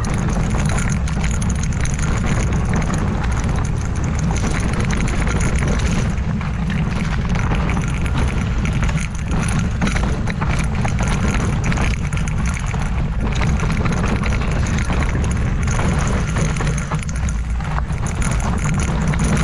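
Ripmo V2 mountain bike descending a steep, rough trail at speed: constant wind rumble on the camera microphone over a continuous rattle and clatter of tyres and bike over rocks and roots.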